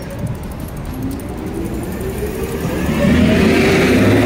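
A road vehicle's engine accelerating, with a drone that rises in pitch and gets clearly louder about three seconds in, over a low traffic rumble.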